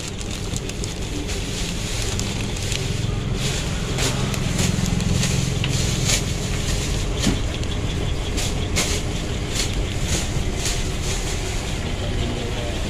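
A motor running with a steady low rumble that grows louder a few seconds in. Over it come scattered sharp clicks and the rustle of plastic fruit bags being handled.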